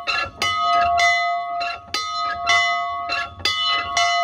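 Antique cast iron bell swinging in its frame, its clapper striking about twice a second, each stroke ringing on into the next.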